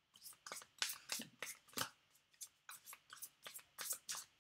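Tarot cards being handled and shuffled by hand: a run of short, irregular clicks, a few a second.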